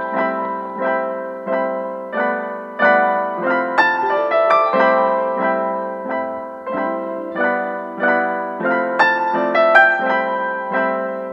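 Background piano music: notes and chords struck at a steady, unhurried pace, each ringing and fading before the next.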